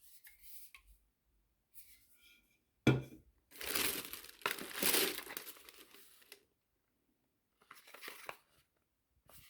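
Packaging being handled during unboxing: crinkling and tearing in several bursts, with one sharp knock a little under three seconds in, as if something is set down, and the longest, loudest stretch of crinkling just after it.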